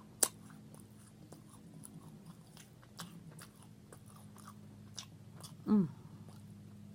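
Close-up mouth sounds of a person eating: soft chewing and smacking, with a sharp click about a quarter second in and a short falling "mm" from the voice near the end.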